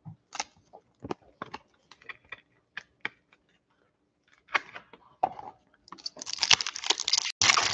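Scattered light clicks and taps of cards and packs being handled, then from about six seconds in the foil wrapper of a football card pack crinkling loudly as it is torn open.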